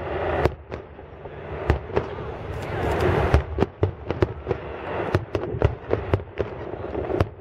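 Aerial fireworks going off in quick succession: many sharp bangs at irregular spacing, over a continuous crackle.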